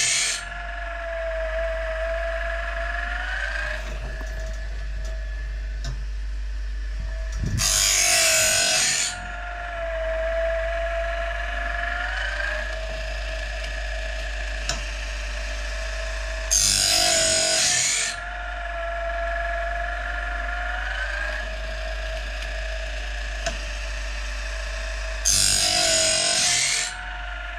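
Powered blade sharpener grinding a sawmill blade: the motor runs steadily and a loud grinding pass comes about every nine seconds, three times plus the tail of one at the start. The motor's pitch sags and recovers between passes.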